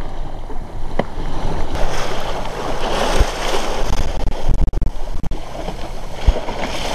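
Rushing and splashing of water along the hull of a small sailing dinghy under way in a choppy sea, with wind buffeting the microphone in gusts.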